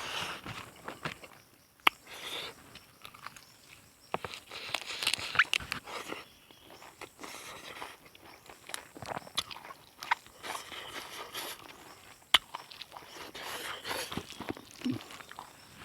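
A person chewing and crunching food close to the microphone, with irregular crunches and scattered sharp clicks; the loudest clicks come about two seconds in and again near twelve seconds.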